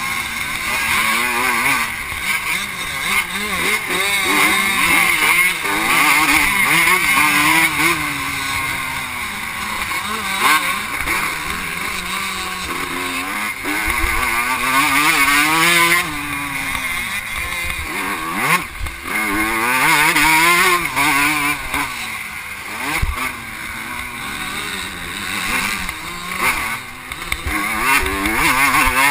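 Vintage 125cc two-stroke motocross bike engine revving hard up and down as it is raced, heard from a helmet-mounted camera. The pitch climbs and drops again and again with throttle and gear changes, with a few brief knocks along the way.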